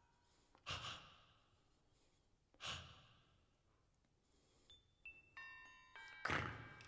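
Two quiet, audible sighs into a close microphone, each fading out slowly. From about five seconds in, small tuned metal bars of a glockenspiel-like instrument are struck one after another and left ringing at several pitches, with a third, louder sigh over the ringing near the end.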